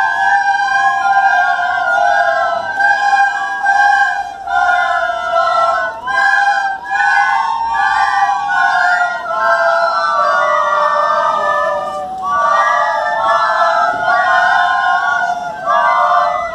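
A large group of children playing plastic recorders in unison, a simple melody of short notes in a thick, slightly out-of-tune massed sound, with brief pauses between phrases.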